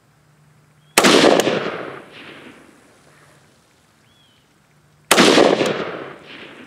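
Two single rifle shots about four seconds apart from a Zastava ZPAP M90PS AK-pattern rifle firing 5.56 M855 62-grain green-tip ammunition. Each sharp crack is followed by an echo rolling off over about a second.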